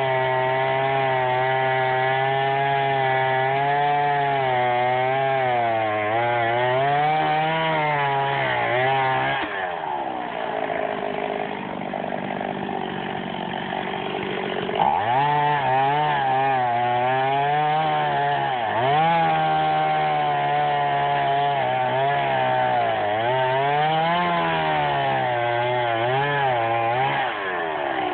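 Chainsaw cutting through a tree, its engine pitch wavering up and down as the chain bites into the wood. For several seconds near the middle it sinks to a lower, rougher note, then revs back up.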